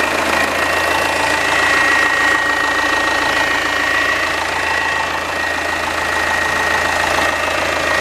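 Citroën C5 engine idling, with a steady high whine from the Hydractive suspension pump priming itself and self-bleeding the hydraulic system.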